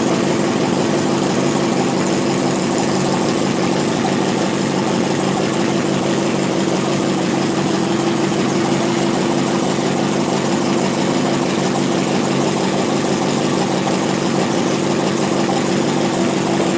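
Four-cylinder model vacuum engine (flame-licker), fired by an alcohol burner, running steadily with a fast, even mechanical rhythm.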